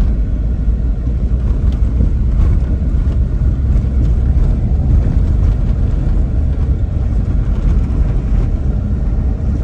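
Steady low rumble of a car in motion, heard from inside the vehicle: engine and tyre noise on the road.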